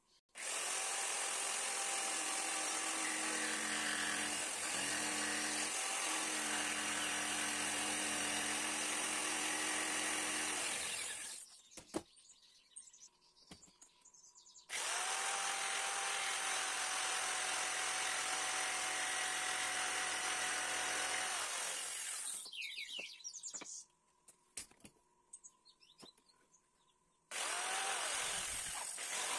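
Corded jigsaw cutting a thin wooden board in three runs. The motor starts about half a second in and runs steadily for about ten seconds, then stops. It runs again for about eight seconds from the middle and starts once more near the end, with light clicks of handling in the pauses.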